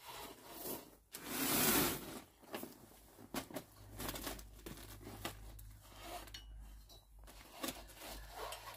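Faint rustling and brushing noise on a phone's microphone, with one louder whooshing burst about a second in and scattered small clicks and rubs.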